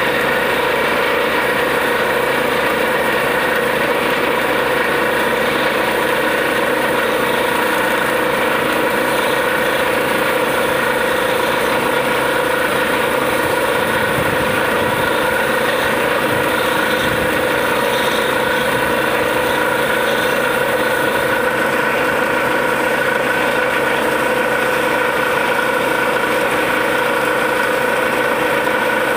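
Truck-mounted borewell drilling rig running steadily as it drills: a continuous machine drone with several held tones, while air blows water and rock cuttings up out of the bore.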